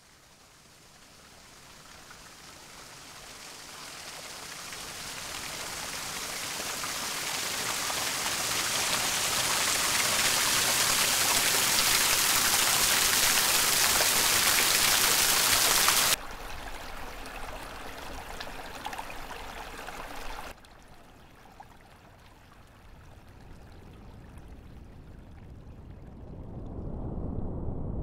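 Rushing water fading in from near silence and swelling to a loud, even wash, then cutting off suddenly about halfway through to a much quieter water sound, which drops again a few seconds later. A low rumble builds near the end.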